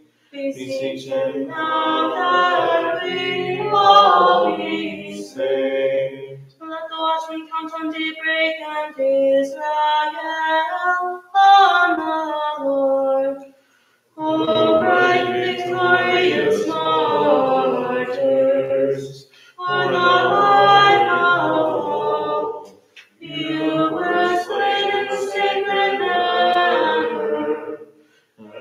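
A group of voices chanting a liturgical Vespers hymn unaccompanied, in sung phrases broken by brief pauses for breath.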